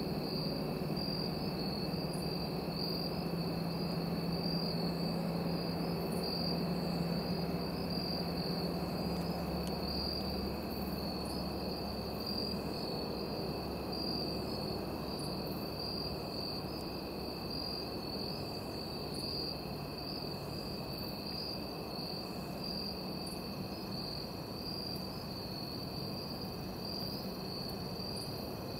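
Steady chorus of crickets and other insects: a continuous high, slightly pulsing trill over a fainter, lower steady band. A faint low hum underneath fades out about ten seconds in.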